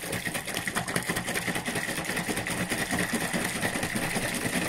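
Plastic bottle of liquid soft-plastic lure compound being shaken hard and fast, its contents sloshing in an even, rapid rhythm.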